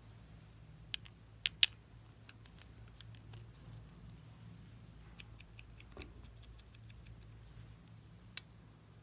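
Small plastic clicks and taps as a toy of snap-together plastic balls is handled and its pieces pulled apart. The sharpest clicks come about one and a half seconds in, followed by lighter ticking and a couple of single clicks later.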